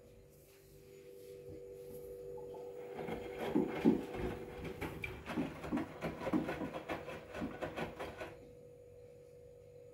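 Front-loading washing machine drum turning during its Rapid 30 wash programme: wet towels tumbling and water sloshing build up about a second in, then go in irregular thumps and swishes for about five seconds before the drum stops near the end. A steady high hum runs underneath.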